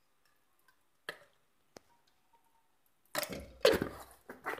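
A steel spoon handling ghee between a glass jar and an aluminium kadai. It is quiet at first with a couple of light clicks, then about three seconds in a rapid cluster of knocks and scrapes, metal on metal and glass.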